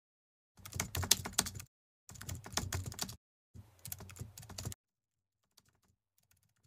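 Keyboard typing sound effect for an on-screen title being typed out letter by letter: three quick runs of key clicks, each about a second long, then a few faint clicks near the end.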